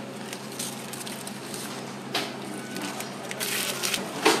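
Parchment paper rustling and crackling as it is peeled away from the sides of baked sponge cakes, with soft handling noises and a short knock near the end.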